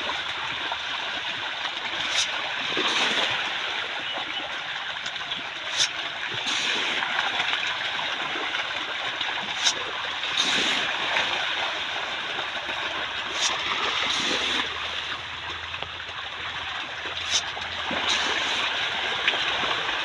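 A packed shoal of pangasius catfish thrashing at the pond surface, a continuous churning and splashing of water. A sharp click cuts through about every four seconds.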